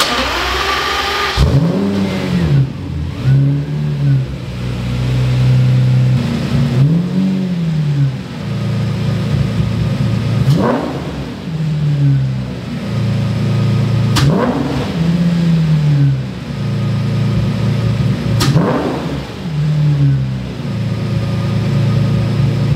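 Lamborghini Murcielago V12 cranked cold, catching about a second and a half in, then revved in a series of throttle blips, each rising and falling back to idle. It sounds a lot better with its refurbished throttle bodies, which are clearly working, though the idle hangs high at about 1,000 rpm, which the owner puts down to the cold engine or Lamborghini quirks.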